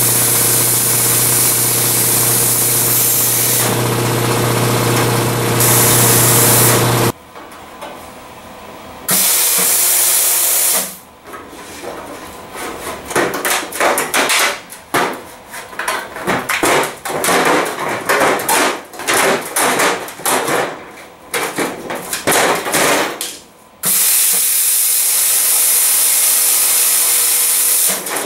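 Snap-on YA2225 plasma cutter with an Alpha 3A air torch cutting a steel pickup tailgate: a loud, steady hiss of arc and air with a low hum, which stops about seven seconds in. A shorter hiss follows, then some thirteen seconds of irregular clanks and rattles as the sheet-steel tailgate is lifted and handled. The steady cutting hiss starts again near the end.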